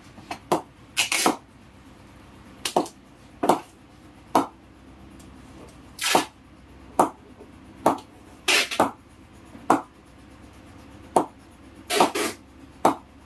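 Leather cricket ball knocked back and forth between English willow cricket bats: a series of sharp, woody knocks, irregularly spaced about half a second to a second and a half apart. It is a knock-about ping test of the bat's face.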